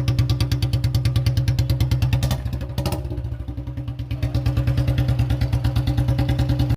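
BS6 Royal Enfield Bullet's single-cylinder engine idling through a long round-bend Punjab-style aftermarket silencer, an even, steady beat of about ten pulses a second. A little over two seconds in, the beat softens for a couple of seconds, with a couple of sharp clicks, then comes back at full strength.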